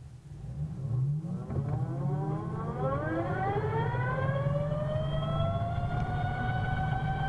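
Vectrix VX-1 electric maxi-scooter pulling away from a stop, its straight-cut reduction gear whining under acceleration. The whine rises in pitch for about four seconds, then levels off into a steady tone with a low rumble underneath.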